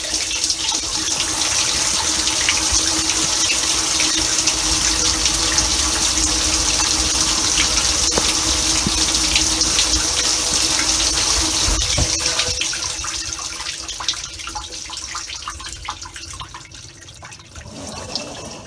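Samsung Waterwall dishwasher running, water spraying and splashing inside the tub over a steady hum, the sound fading away over the last few seconds.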